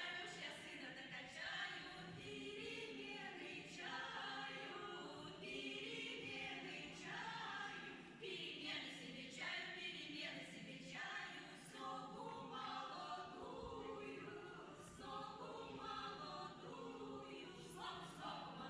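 A choir singing unaccompanied, several voices together.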